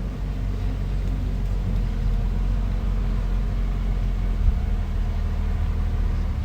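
Bulldozer's diesel engine running steadily with a low, heavy drone, with a brief low knock about halfway through.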